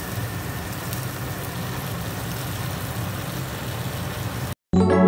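A steady low hum with an even hiss over it, which cuts off suddenly near the end; after a brief gap, piano music begins.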